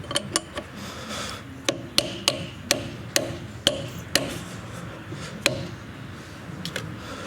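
Diamond segments being knocked into place on the grinding heads of an HTC 500 concrete floor grinder: a dozen or so sharp knocks at an uneven pace, bunched in the first half.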